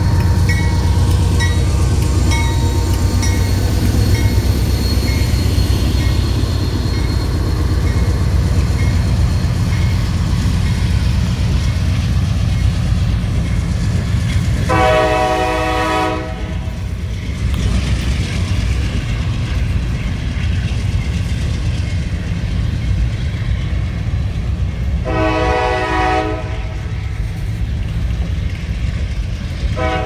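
Diesel-hauled freight train passing close by, with a loud steady low rumble of locomotives and then hopper cars rolling on the rails. Norfolk Southern GE AC44C6M NS 4004 sounds its horn in two long blasts, near the middle and about two-thirds through, and a third blast begins right at the end.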